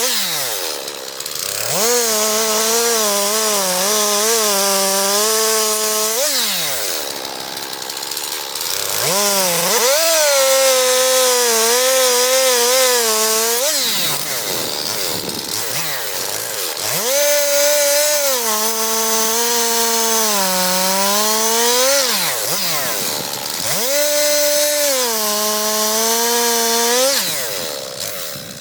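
Chainsaw revved to full throttle four times, cutting firewood logs. Its pitch sags slightly under load in each cut and falls back toward idle in between.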